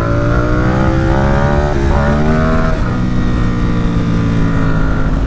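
Ducati SuperSport 950 S's L-twin engine accelerating: the revs climb, drop sharply at an upshift a little under two seconds in, climb again, then ease off and hold nearly steady for the rest.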